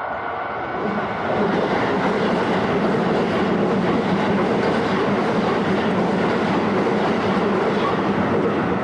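Keisei Main Line electric train passing over a level crossing: a loud, steady rush and rumble of wheels on the rails that swells about a second in and holds until the train has gone by.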